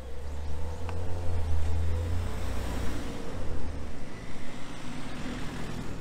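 A car driving past close by: engine rumble and tyre noise build to a peak about two seconds in, then fade away.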